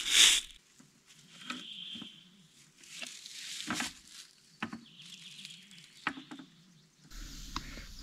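Handling noises from a motorcycle wheel and its punctured inner tube being repaired: a loud rustle at the start, then scattered clicks, rustles and a few short hisses. A steady low background comes in near the end.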